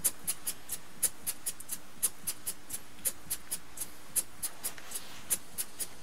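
Two-cylinder, double-acting oscillating (wobbler) model steam engine running slowly on compressed air, its exhaust puffing in an even beat of about four short hissy chuffs a second. The air pressure feeding it is so low that the gauge is not even registering.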